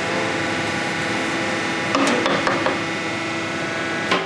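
Clatter and knocks of a cooking utensil against a pot, a quick cluster about two seconds in and one sharp knock near the end, over the steady hum of kitchen equipment.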